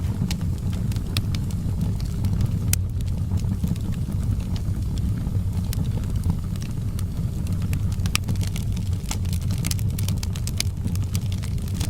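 Wood fire in a fireplace crackling, with frequent sharp pops and snaps over a steady low rumble of the burning fire; the pops come thickest a little past two-thirds of the way through.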